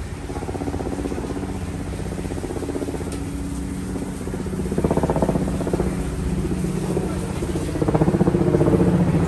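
A motor vehicle's engine running close by, a steady note with a fast, even pulse, growing louder about five seconds in and again near the end.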